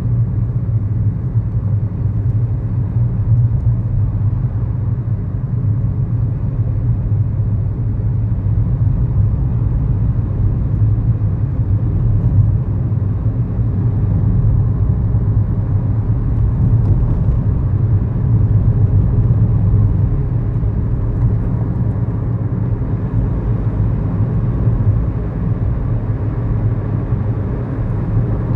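Steady low drone inside the cabin of a 2011 Kia New Morning: its 999 cc four-cylinder SOHC engine running with road and tyre rumble, at an even pace with no gear changes or revving.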